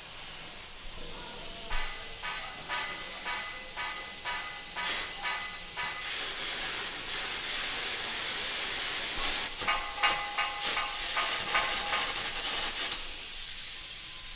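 Metal fabrication shop noise: a steady hiss begins about a second in, with two runs of short, repeated ringing metallic tones over it.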